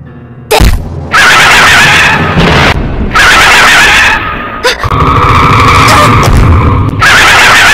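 Loud fight sound effects: a sharp hit about half a second in, then a run of harsh crashing blasts, each a second or two long.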